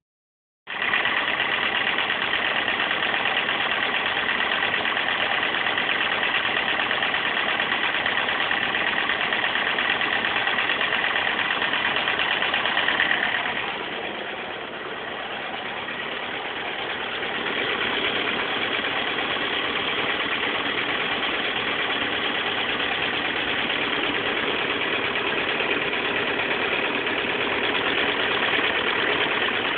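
Motorcycle engine running steadily, its sound dipping for a few seconds about halfway through before coming back up. This is the noise the owner wants to show.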